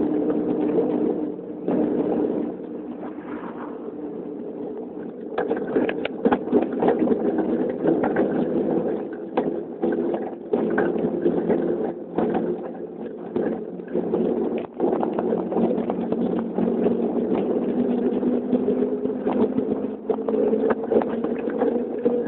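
Bicycle riding noise picked up by a camera mounted on the bike: a steady droning hum whose pitch drifts slowly up and down, with frequent knocks and rattles from bumps in the road.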